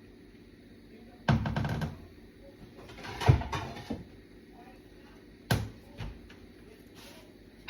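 Kitchen handling sounds: a few separate knocks and clatters of cookware and cupboard doors, with quiet between them.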